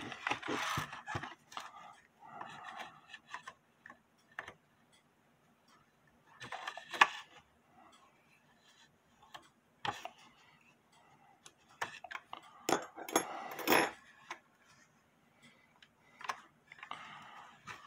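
Irregular small clicks, taps and scrapes of hands and metal working inside a wooden cuckoo clock case while a wire is bent toward the music-trip lever, with a few sharper knocks about seven, ten and thirteen seconds in.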